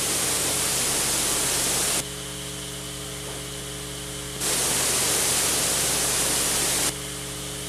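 Loud hiss of gas venting at a rocket engine test stand. It cuts in and out abruptly: on for about two seconds, off, then on again for about two and a half seconds, with a low steady hum underneath.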